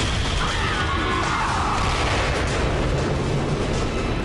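Dramatised crash sound effects of a Boeing 737 airliner slamming into a bridge: a loud, continuous rumbling crash full of debris noise, with dramatic music underneath.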